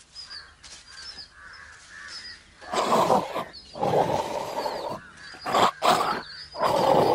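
Four loud, rough growling bursts during a lion attack on a large prey animal, starting nearly three seconds in, each under a second long. Under them a faint high chirp repeats about twice a second.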